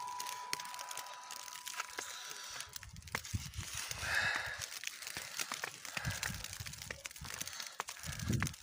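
Faint patter of falling snow on leaves and ground: a scatter of small ticks, with low rumbles of wind on the microphone and a brief higher sound about four seconds in.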